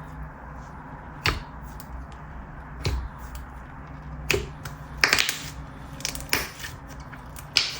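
Hands squeezing and poking a butter chew slime, making scattered short clicks and pops, a handful of them a second or so apart.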